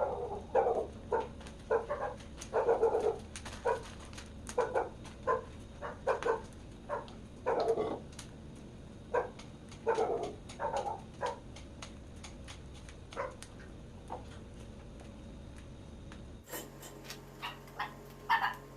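A dog giving short, irregular yelps and whines, mixed with sharp clicks. Near the end the sound cuts to a steady low hum with a few ticks.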